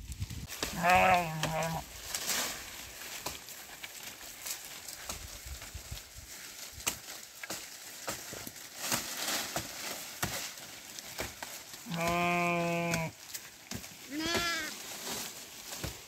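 Sheep bleating three times: a wavering bleat about a second in, then a longer steady bleat and a short one close together near the end, over a constant patter of small clicks and rustles.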